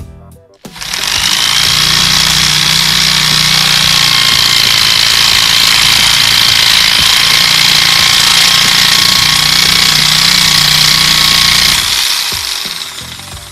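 Electric drill driving a homemade reciprocating-saw attachment, its blade sawing back and forth through a thin strip of wood clamped in a vise: a loud, steady mechanical rattle with a high motor whine. It starts about a second in and dies away near the end as the cut finishes.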